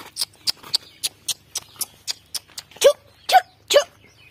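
A quick, even run of sharp clicks, about four a second, then three short, pitched yelps from a dog in quick succession near the end.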